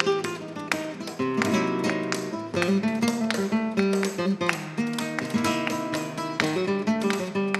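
Live instrumental music: acoustic guitars strummed and picked in a rhythmic flamenco-style fusion arrangement.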